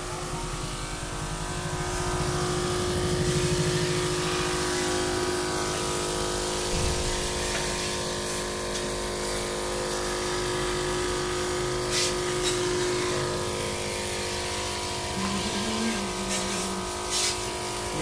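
Electric diaphragm pump of a Hymatic portable sprayer running with a steady hum. A couple of sharp clicks in the second half.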